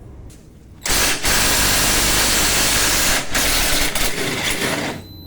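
Power wrench running as it undoes the bolt on a car's front lower control arm. It starts about a second in, breaks briefly in the middle, and stops just before the end.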